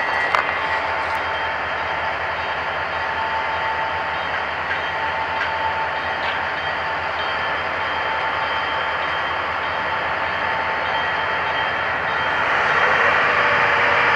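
Heavy diesel engine running steadily, from a rail yard switcher locomotive or a mobile crane. It grows louder about twelve seconds in.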